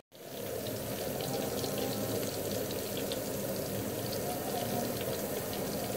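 Red palm oil with sliced onions frying in a pot, heated to bleach the oil: a steady sizzle with scattered small crackles.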